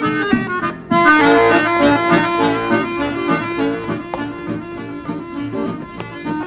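Accordion playing a lively tune in chords and changing notes. It drops away for a moment just before a second in, then comes back in loudly.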